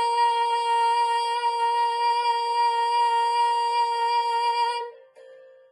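A girl's solo singing voice holding the long final note of a musical-theatre ballad steady for about five seconds, then stopping.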